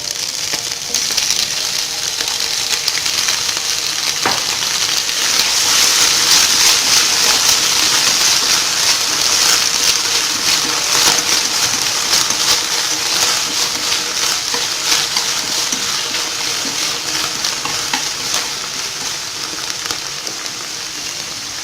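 Blanched bok choy sizzling in hot oil in a frying pan as it is stir-fried, with scattered clicks of the spatula against the pan. The sizzle starts at once, swells a few seconds in and eases off near the end.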